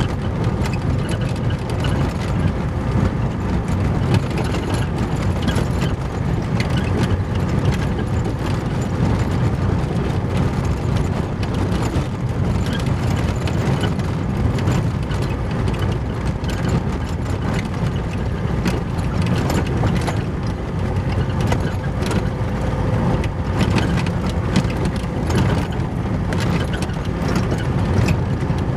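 Car driving on a rough gravel road, heard from inside the cabin: a steady low rumble of tyres and suspension with frequent sharp clicks and rattles throughout.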